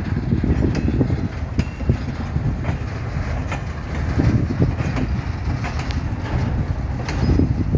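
Empty mineral hopper wagons of a freight train rolling past: a steady low rumble from the wheels on the rails, with sharp clicks and clanks about every second as the wheels cross rail joints.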